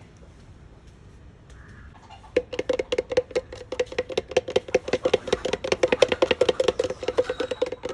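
Paint being stirred briskly in a container, the stirrer knocking against its sides in a rapid, even run of ringing clinks that starts about two and a half seconds in.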